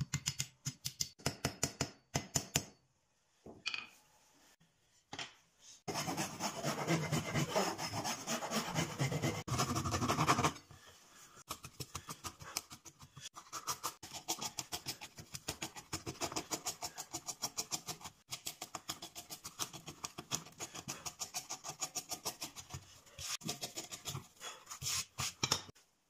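Hand tools working wood: runs of quick, even scraping and rasping strokes, several a second, with hammer taps near the start. A louder, heavier stretch of strokes comes in the middle, and later a narrow chisel scrapes out grooves in a board.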